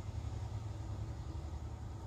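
Steady low rumble with a faint even hiss: background room noise.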